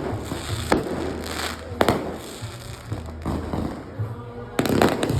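Fireworks going off: a sharp bang under a second in, another just under two seconds in, and a quick run of bangs near the end, with crackling in between.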